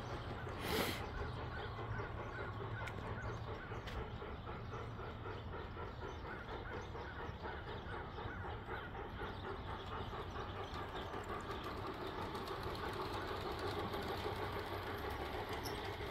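LGB G-scale C&S Mogul model locomotive running, its digital sound unit playing steady steam-locomotive running sounds. A brief loud burst of noise about a second in.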